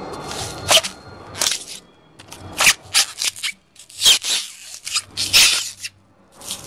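A run of short, sharp scraping and crackling noises, about eight in all with brief pauses between, from work on the disassembly of an old electric water heater.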